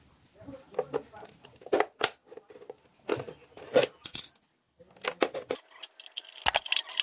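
Utility knife blade stabbing and slicing through the thin plastic of a PET bottle: irregular sharp crackles and clicks. Near the end, scissors snip at the plastic and steady musical tones come in.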